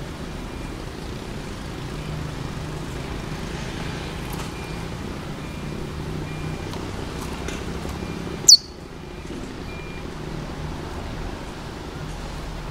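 Steady city traffic noise with a low hum, broken once, about eight and a half seconds in, by a single loud, sharp, high chirp sliding downward from a young chestnut-bellied seed finch (curió).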